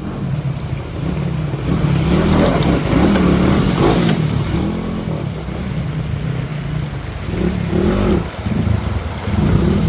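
Motorcycle engine running and revving up and down under load as it crosses a shallow, rocky river.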